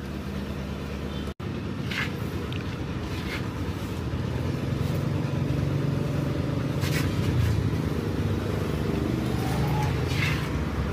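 A motor vehicle engine running steadily, with a few short metallic clicks of work on the wheel.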